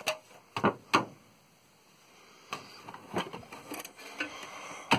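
Handling noise from an Apple Lisa's case and card cage: sharp knocks about half a second and a second in, then faint rustling with a few soft clicks, and a louder knock at the very end.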